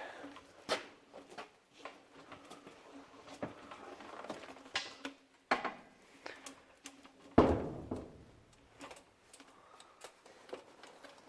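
Scattered knocks, clicks and scrapes of a 50-litre air compressor being shifted and squeezed into a tight spot, with one louder thump about seven seconds in.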